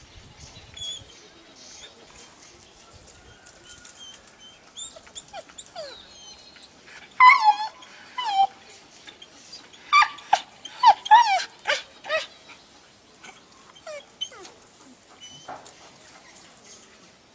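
A dog giving excited, high-pitched yelping barks. There is a loud burst a little before halfway, then a quick run of about six more shortly after, with a few fainter ones around them.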